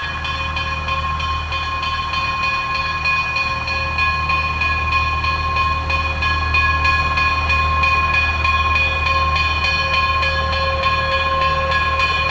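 Pennsylvania Railroad 'Doodlebug' motor car no. 4666 pulling away along the track: a steady low engine rumble with a steady whine above it, growing slightly louder over the stretch.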